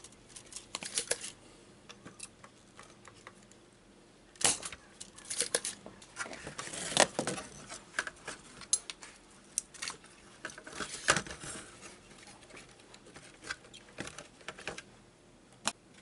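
Spring-loaded desoldering pump snapping as its plunger is cocked and released, while a burnt power IC is desoldered from a washing machine control board. Irregular sharp clicks and light rattles of the circuit board being handled.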